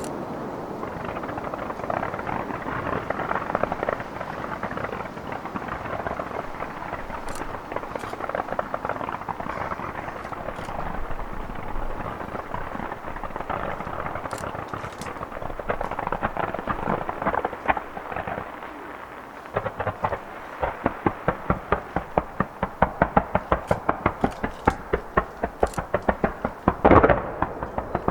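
Fireworks display: a dense, continuous crackling of bursting shells, then a rapid barrage of sharp bangs, about three a second, from roughly two-thirds of the way in, with one loud burst near the end.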